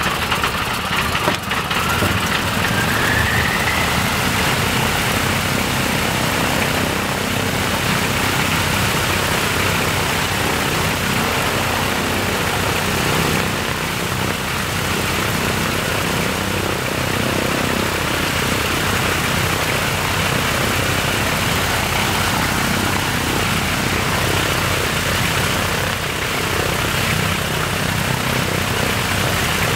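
Ilyushin Il-14's Shvetsov ASh-82T radial piston engine running steadily just after being started, its propeller turning. A faint rising whine sounds about a second in.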